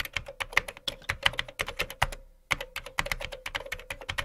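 Computer keyboard typing sound effect: quick, uneven keystrokes with a brief pause about two seconds in, over a faint steady hum.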